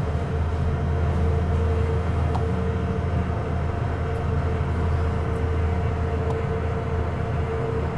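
Cruise ship glass elevator car travelling between decks: a steady low hum with a fainter steady higher tone over it.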